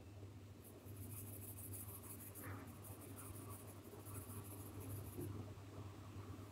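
Derwent Chromaflow wax-based coloured pencil shading a colour swatch on drawing paper: faint, rapid back-and-forth scratching strokes that start about a second in and stop about a second before the end, over a steady low hum.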